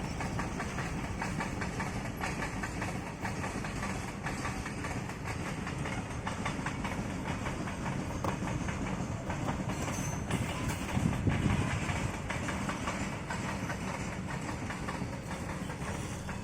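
Coal-laden freight train rolling past, its wagon wheels clacking over the rail joints in a steady, continuous run of clicks over a low rumble.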